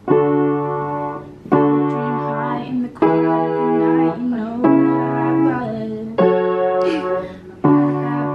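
Piano played by hand, with full chords struck about every second and a half and left to ring between them.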